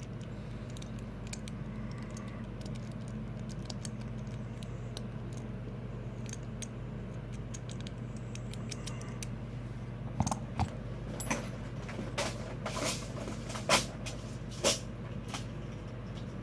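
Small metal clicks and taps of tools and parts on a padlock cylinder being taken apart, scattered through the second half, with a steady low hum underneath. The lock's plug is jammed, later put down to a pin-in-pin clogging the works.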